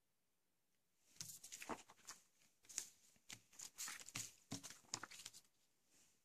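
Paper leaflets rustling and crackling as they are shuffled and slid over a plastic table cover. The irregular handling noise starts about a second in and stops shortly before the end.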